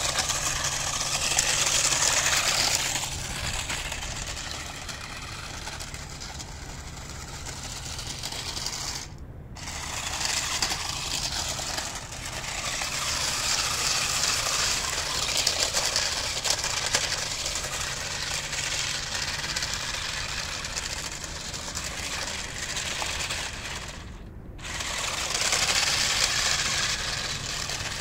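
Toy remote-control rock crawler driving over asphalt: its small electric motor and plastic gears whirring with a rattle, and its rubber tyres hissing on the rough surface. The noise drops away abruptly twice, about nine seconds in and again near the end.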